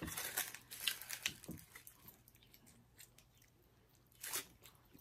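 Faint eating sounds: a few small mouth clicks and chewing noises, then a single louder bite into a taco about four seconds in.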